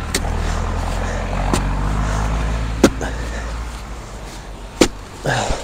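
Forestry machinery driving past: a low, steady engine rumble that slowly fades away. A few sharp clicks sound over it.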